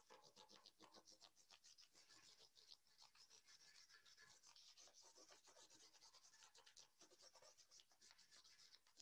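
Faint scratching of a gray crayon rubbed back and forth in quick strokes across a paper plate.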